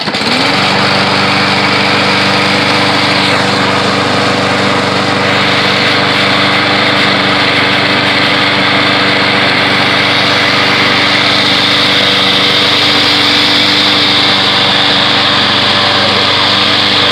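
Walk-behind push lawn mower's small engine starting right away and then running steadily, with no stalling or surging. It is the mower working again after a carburetor repair cured a no-start.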